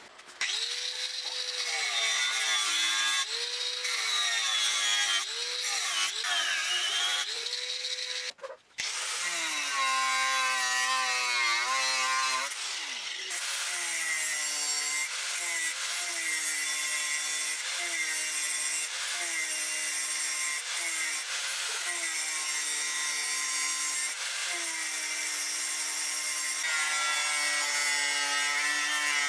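Electric power tool working scrap steel in repeated passes, its motor pitch sagging under load and recovering between strokes. The sound cuts out briefly about a third of the way in.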